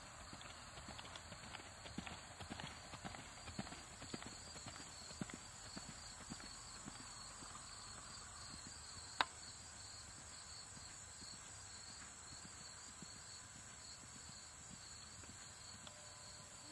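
Hooves of a ridden American Quarter Horse on a dirt arena: a run of soft, irregular hoofbeats, clearest over the first six seconds and fading after. One sharp click about nine seconds in.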